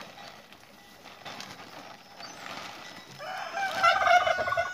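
A rooster crows once, starting about three seconds in, with a single call lasting about a second and a half.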